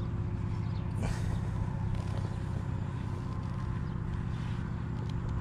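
Steady low drone of an engine running, with a faint steady hum over it and a single sharp click about a second in.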